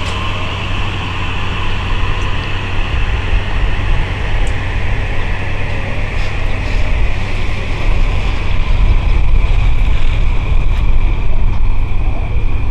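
Metro-North M8 electric commuter train running through the station, a steady rumble that grows louder in the second half.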